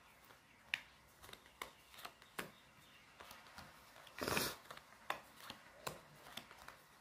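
Playing cards being dealt by hand onto a cloth-covered table: faint, scattered taps as each card lands, with a longer rustle of cards about four seconds in.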